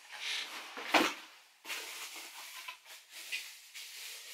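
Rummaging through an opened cardboard box: rustling of the contents and packing, with one sharp knock about a second in.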